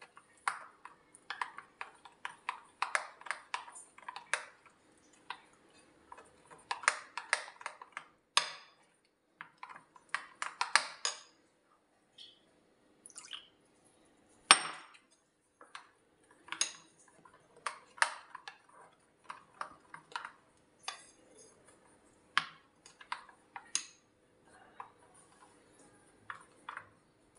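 A steel spoon stirring a thin flour-and-water batter in a bowl, clinking and scraping against the sides in quick, irregular strokes. The stirring pauses briefly about twelve seconds in, and one sharper clink stands out just after.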